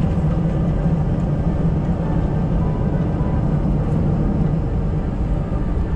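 Steady cabin noise of a jet airliner taxiing after landing, the engines at idle, heard inside the cabin as an even rumble with a low hum.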